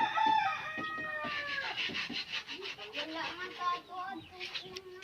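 A pet animal crying: one long high cry falling in pitch, then a run of rapid pulsed high calls.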